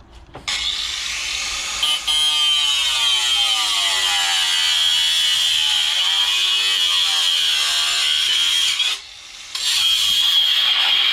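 A power tool running for about eight seconds, its pitch wavering as it works, stopping briefly, then running again for about two seconds.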